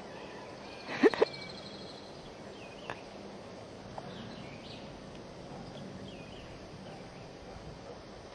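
Outdoor background with faint, short bird chirps repeating every second or so, and a brief loud sound, rising in pitch and coming twice in quick succession, about a second in.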